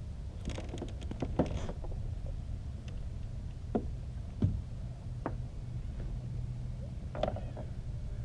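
Scattered knocks, clicks and light creaks of gear being handled in a kayak, over a steady low rumble; a cluster of clicks comes in the first two seconds and single knocks follow every second or so.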